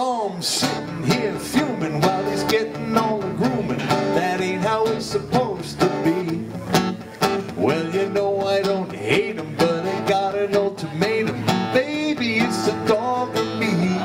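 A man singing a song to his own strummed acoustic guitar, the voice carrying a sliding melody over steady strumming.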